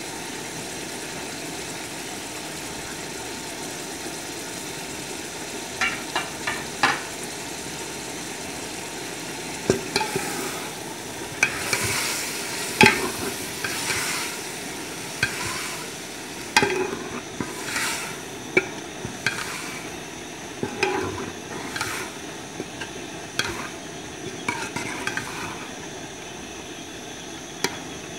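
Steel spoon stirring diced carrots and peas in a metal degchi, scraping through the vegetables and knocking against the pot's sides, over a steady background hum. A few taps come about six seconds in, then stirring and scraping for much of the rest.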